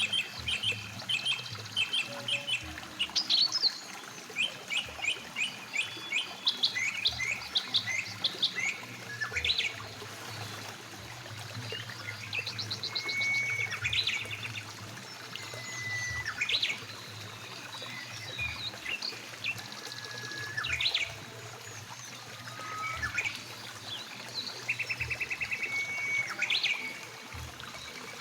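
Several songbirds chirping and singing, with quick runs of short chirps in the first ten seconds and scattered whistled notes after that, over the steady rush of a mountain river.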